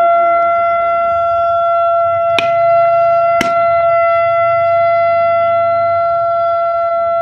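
One long, steady blast on a conch shell (shankha) at a single pitch. Two sharp knocks about a second apart land a little past two seconds in.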